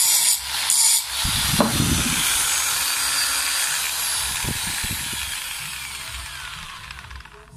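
Angle grinder that has lost its power grinding a steel bar in short strokes for about a second. It is then lifted off and runs free, its whine slowly falling and fading.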